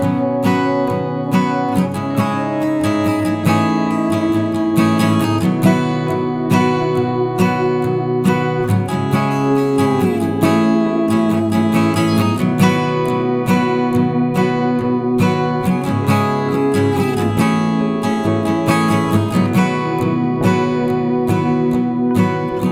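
Background music: acoustic guitar, plucked and strummed in a steady rhythm, with some sliding notes.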